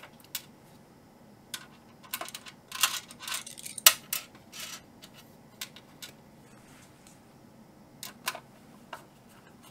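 Small metal screws and a Phillips screwdriver clicking and scraping against the NVR's metal case as the hard-drive mounting screws are started. The light clicks come irregularly, with a cluster around two to three seconds in, the loudest click about four seconds in and a few more near the end.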